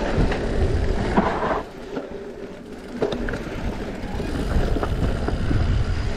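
Enduro e-mountain bike riding a rocky trail: wind rumble on the microphone and tyres running over loose stones, with scattered sharp knocks and rattles from the bike. It eases for about a second around two seconds in, then picks up again.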